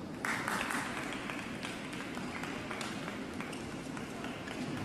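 Arena crowd cheering and clapping after a badminton rally point. It starts suddenly about a quarter second in, is strongest for about a second, then thins to scattered claps and murmur.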